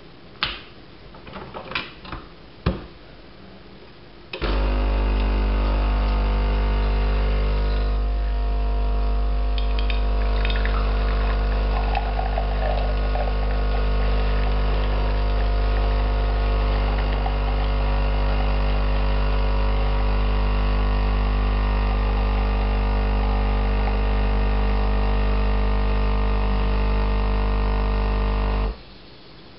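A few clicks as a capsule is loaded into an ALDI Expressi capsule machine. About four seconds in the machine's pump starts with a loud, steady hum while it dispenses milk into a glass, and it cuts off suddenly near the end.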